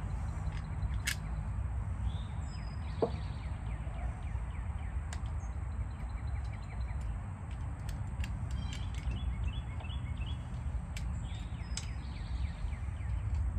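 Outdoor background: a steady low rumble with birds chirping now and then, including a quick run of chirps about two-thirds of the way through, and a few scattered light clicks.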